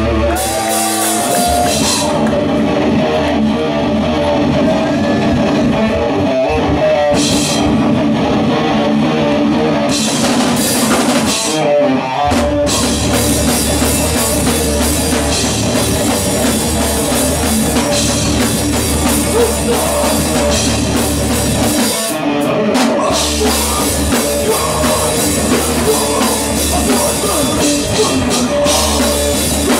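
Live rock band playing loud, with electric guitars, bass and a drum kit. The low end cuts out briefly about a second in and again around twenty-two seconds in, and comes in heavier from about twelve seconds in.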